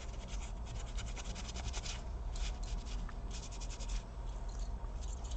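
Scraping and rubbing at old, hardened thermal paste on the laptop's cooling parts, heard as rapid runs of short scratching strokes. The paste is dried out like concrete.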